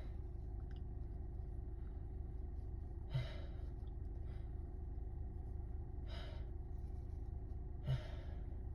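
A person's breathy gasps, three of them a few seconds apart, over a steady low hum.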